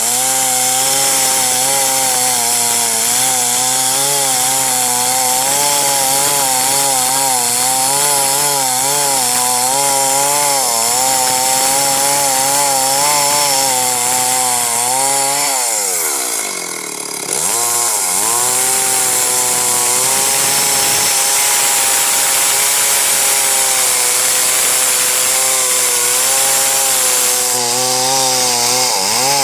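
Chainsaw engine running hard while cutting through tree wood, its pitch wavering under load. About halfway through the revs fall away and then pick back up, and they dip briefly again near the end.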